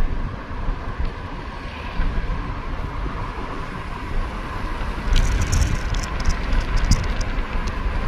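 Steady low rumble of a vehicle driving along the road, with wind noise on the microphone. A cluster of short sharp clicks or rattles comes about five seconds in.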